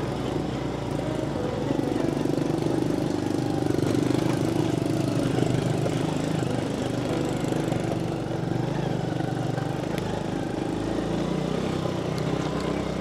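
Small motorbike engine running steadily while riding a rough dirt track, a little louder from about two seconds in and easing off after about six.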